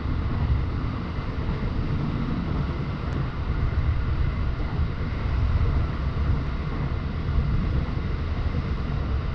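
JR Joban Line electric commuter train running at speed, heard from inside the passenger car: a steady low rumble of wheels on the rails with an even hiss above it.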